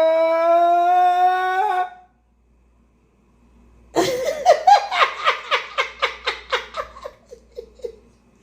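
A voice holding one long drawn-out shouted note that rises slightly in pitch and cuts off about two seconds in. After a short silence, a burst of hearty laughter starts about four seconds in and fades away.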